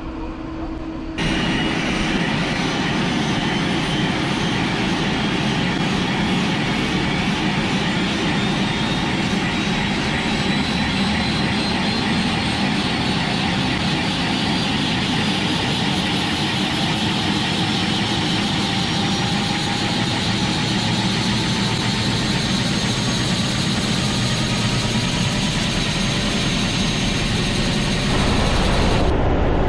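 Airbus H125 helicopter's turboshaft engine running up on the ground. The turbine noise comes in abruptly about a second in, then a whine rises steadily in pitch as the engine and main rotor spool up. Near the end the sound changes abruptly and gets louder.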